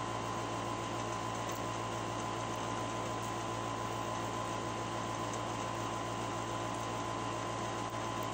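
Steady mechanical room noise: a continuous hum and hiss with a thin high whine, unchanging throughout.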